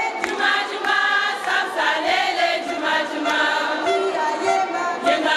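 A crowd of women singing together in chorus, with hand claps.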